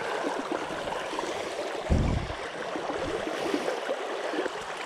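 Shallow stream babbling over stones, with a brief low thump about two seconds in.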